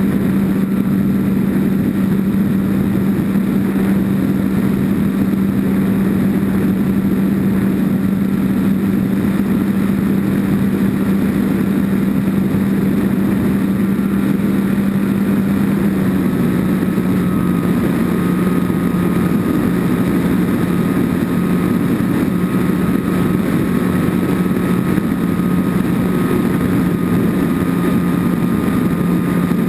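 RC airplane's motor and propeller running steadily, picked up on board the plane, a steady hum with a fainter whine above it. Both drop slightly in pitch about halfway through as the throttle eases.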